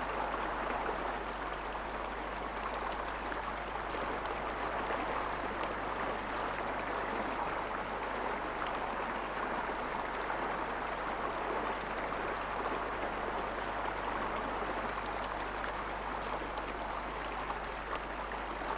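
Steady rushing of a rocky river flowing, with a constant low hum underneath.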